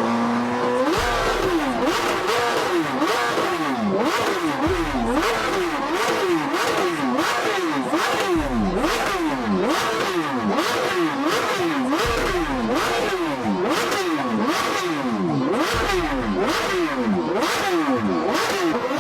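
A superbike's inline-four engine is revved hard over and over through a loud sport exhaust. The pitch climbs and drops sharply a little more than once a second, with sharp cracks at many of the drops.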